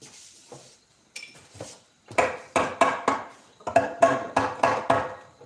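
Hand hammer striking on a wooden workpiece in quick, even blows, about four a second, each with a short metallic ring. A few light taps come first, and the hammering starts about two seconds in.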